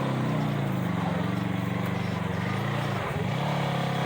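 Side-by-side UTV engine running under throttle at crawling speed, its pitch wavering up and down, dropping briefly about three seconds in and then rising again.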